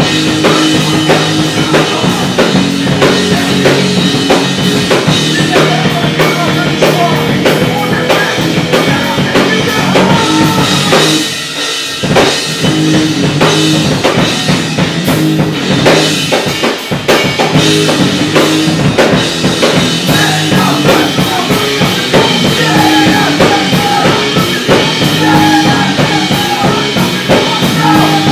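Live melodic hardcore band playing loudly: electric guitar, bass guitar and a drum kit. The band drops out briefly about eleven seconds in, then comes back in.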